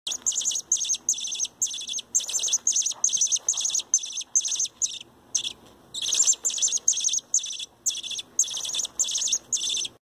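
Nestling bird's shrill begging calls, short high chirps repeated about three times a second, with a brief pause midway before they resume. The chick gapes wide as it calls, asking to be fed.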